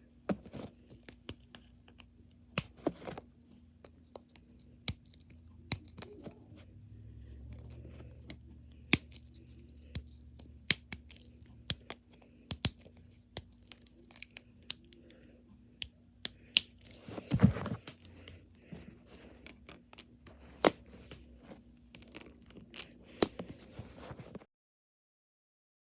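MathLink plastic linking cubes being handled and snapped together: irregular sharp clicks and snaps with some rustling, over a faint steady hum, cutting off suddenly near the end.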